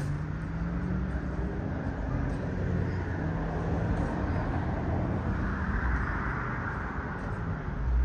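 Street traffic: a motor vehicle's low engine hum over road noise, which swells for a couple of seconds about five seconds in as a vehicle passes.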